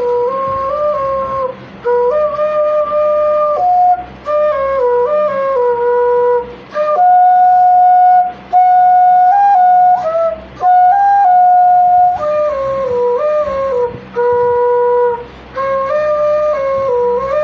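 Background music: a flute playing a slow melody in short phrases, with brief pauses between them.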